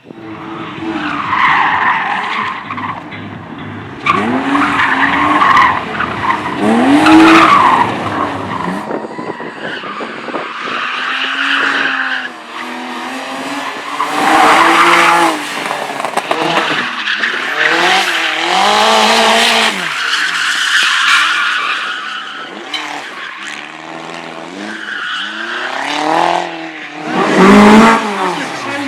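Competition car engine revving hard and falling back again and again, with repeated tyre squeal as it is thrown through a tight slalom course.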